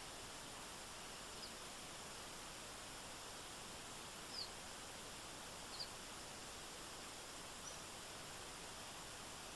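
Steady, even hiss of a stream's running water, with four short, high, falling chirps from a small bird scattered through it.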